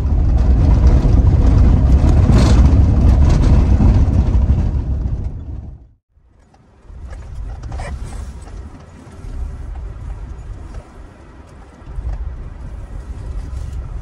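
Vehicle driving, a loud low rumble with mechanical rattling. It cuts off about six seconds in, then resumes quieter and uneven.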